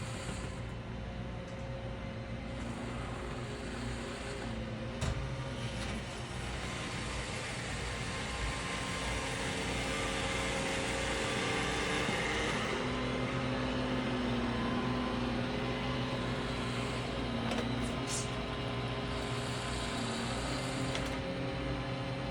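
Robot vacuum cleaner running: a steady motor whir with brush and suction noise that grows louder around the middle. A couple of short sharp knocks stand out, about five seconds in and again near eighteen seconds.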